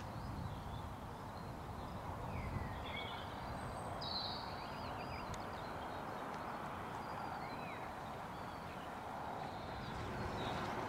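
Outdoor ambience: a steady background rush with a few birds chirping now and then.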